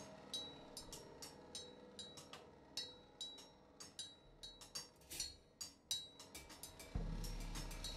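Improvised percussion: quiet, irregular metallic taps and clicks, some leaving a short high ring. About a second before the end a loud low rumble comes in and holds.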